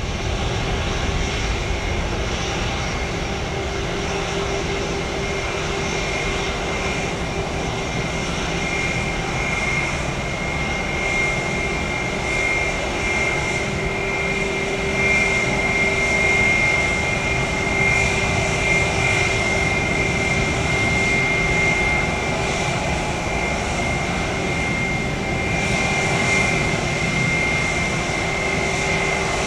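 Airliner's jet engines running steadily, a high whine over a lower hum and a broad rush of engine noise.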